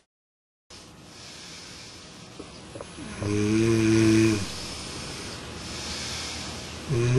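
A person snoring: two low, droning snores, each about a second long and roughly three and a half seconds apart, with a breathy exhale between them.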